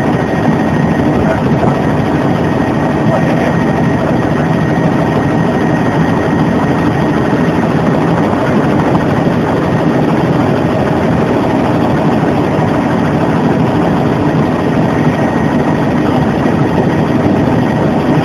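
Bell 206 JetRanger helicopter in flight, heard from inside the cabin: the steady, loud rumble of the main rotor and Allison 250 turboshaft engine, with a faint thin high whine above it.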